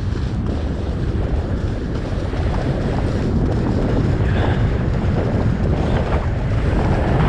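Wind buffeting a skier's camera microphone while skiing downhill on a groomed piste: a steady low rumble that grows a little louder as the skier picks up speed.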